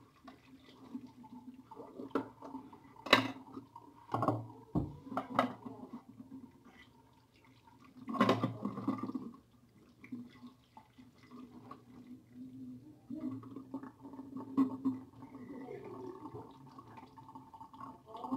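Water splashing and dripping as whole fresh Indian mackerel are rinsed and handled by hand in a metal basin, with irregular knocks and clinks of fish against the basin. The busiest splashing comes in short spells about 3 s, 4 to 5 s and 8 to 9 s in.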